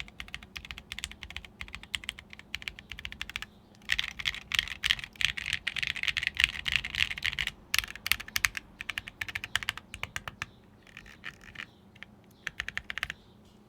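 Typing on a Laneware LW-67 mechanical keyboard with aluminum keycaps on lubed and filmed Tecsee Ruby v2 switches in an aluminum plate: a fast run of keystrokes, loudest and densest from about four to seven and a half seconds in, then thinning out, with a last short burst near the end.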